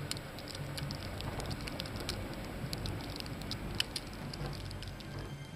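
Wind-driven snow pelting the camera and the chairlift's metal frame: many small, irregular ticks over a steady low wind rush.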